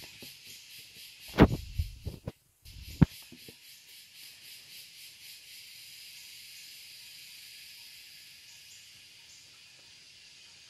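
Steady, faintly pulsing high-pitched insect chorus. A few loud knocks and rubs close to the microphone in the first three seconds.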